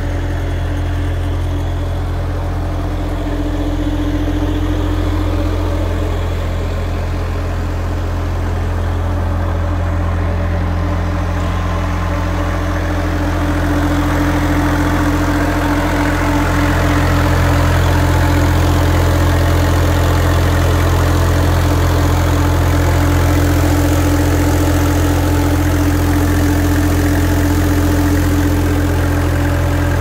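Bobcat S100 skid steer's small three-cylinder Kubota diesel engine running steadily at idle, louder about halfway through, when it is heard close at the open engine compartment.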